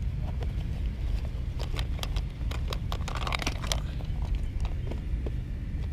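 A backpack being pulled open and rummaged through: a run of sharp clicks, with a denser rustle about three seconds in, over a steady low rumble.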